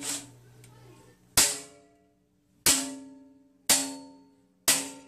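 Sheet steel clamped over angle iron in a bench vise being pounded to bend a tab. There are four sharp metallic blows about a second apart, each ringing briefly and dying away.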